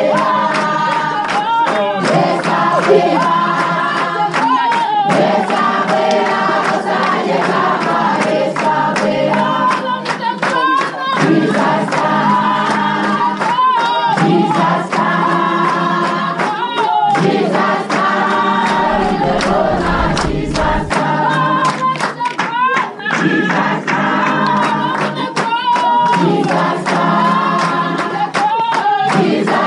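A choir singing together, many voices in harmony, without a break.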